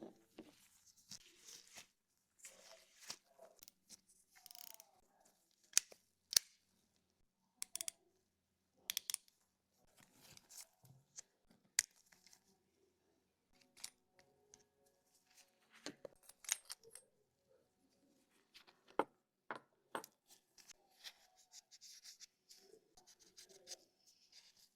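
Scattered sharp clicks, taps and short scrapes of hands handling a baitcasting reel and its small parts during maintenance. A few louder snaps stand out among them.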